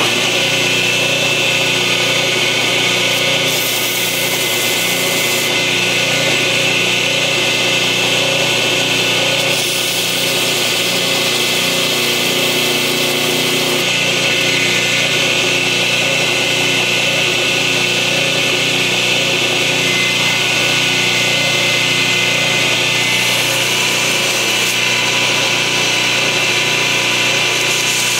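Belt grinder running steadily with an 800-grit sanding belt, grinding down the steel blade tip of a pocket knife into a tanto point. The high hiss shifts a few times as the blade's contact with the belt changes.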